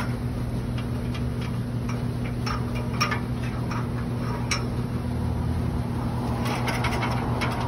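Light clicks and taps of a halyard rope and hands working against an aluminium ladder rung as the knot is tied, a few scattered and a small cluster near the end, over a steady low machine hum.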